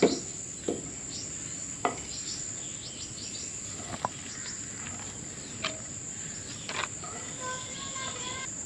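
A spoon scooping boiled rice from a clay bowl into a metal pot, giving a handful of light clicks and taps against bowl and pot, over a steady high-pitched insect chirring.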